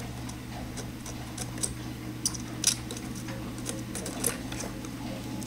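Steady low hum with a handful of faint, scattered clicks and ticks: small handling sounds as copper desoldering braid is pressed and slid against a circuit-board joint with a soldering iron.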